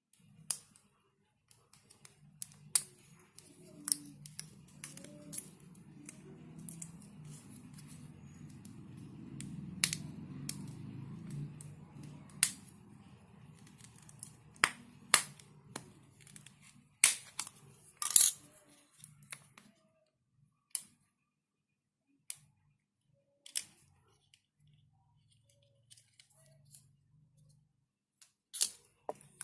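Scattered sharp clicks and taps of a Q18 smartwatch and its packaging being handled, with the loudest cluster about two-thirds of the way in. A faint low murmur sits underneath for the first two-thirds.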